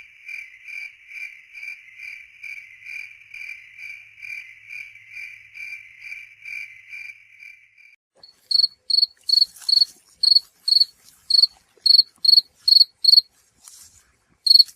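Crickets chirping. First a lower-pitched chirp repeats about twice a second and stops about eight seconds in. After a short pause, a louder, higher-pitched cricket chirps about twice a second, breaks off, and gives one last chirp near the end.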